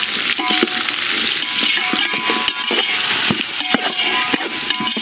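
Sliced onions sizzling in hot oil in a large metal pot as they sauté, stirred with a slotted metal ladle that clicks and scrapes against the pot many times.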